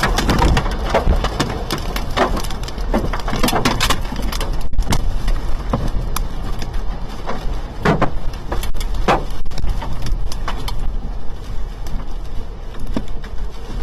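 Storm wind blowing hard with a steady rumble, and many irregular knocks and rattles of debris and loose objects being struck or shaken.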